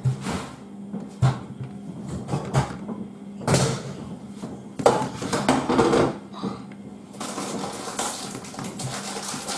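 Cheese being grated by hand on a stainless steel box grater into a plastic bowl: a series of irregular rasping strokes of uneven length.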